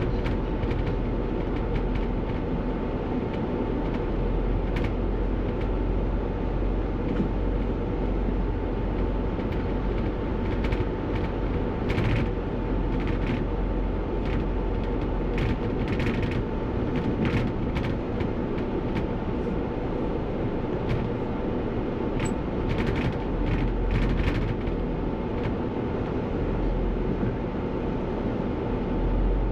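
Single-deck bus on the move, heard from the driver's cab: steady engine and road noise with a constant thin whine, and frequent short clicks and rattles.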